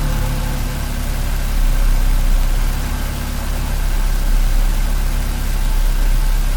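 2014 BMW 428i's 2.0-litre turbocharged four-cylinder engine idling steadily with a low hum. It is running rough because the intake air hose after the mass airflow sensor has come off.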